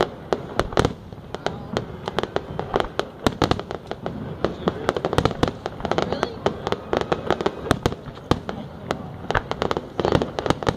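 Aerial fireworks display: a dense, irregular volley of sharp bangs and crackles from bursting shells, several a second, with no let-up.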